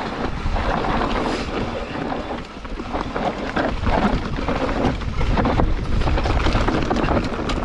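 Full-suspension mountain bike running fast down a dirt singletrack: wind rushing over the camera microphone and knobby tyres rumbling on the dirt, with frequent clattering and rattling from the bike over the bumps.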